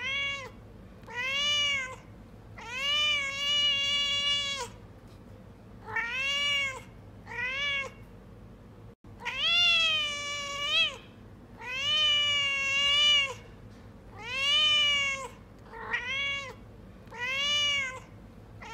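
A cat meowing over and over: about nine meows, some short and some drawn out for more than a second, each rising and then falling in pitch.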